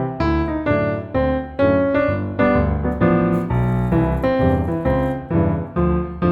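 Background piano music: a steady run of struck notes, about two or three a second.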